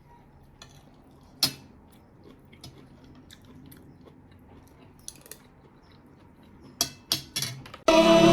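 Occasional clinks of cutlery against dishes over a quiet room: one sharp clink about a second and a half in, a few small ones later, and a quick run of clinks near the end. Background music comes in loudly right at the end.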